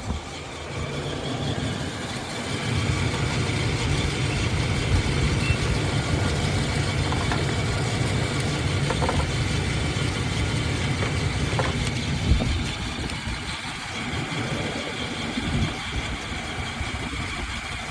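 Car engine idling with a steady low rumble, just started off a battery charger. About twelve seconds in there is a knock and the rumble drops away.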